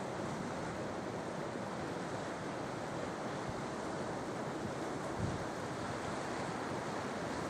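Sea waves washing onto the shore: a steady, even rush of surf.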